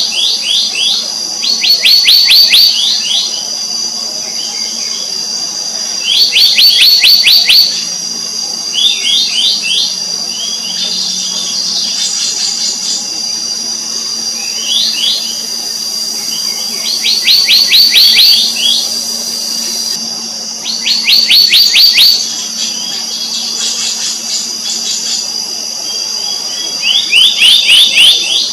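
Black-naped monarch calling: quick runs of sharp, high notes, each run about a second long, repeated every few seconds over a steady high-pitched drone.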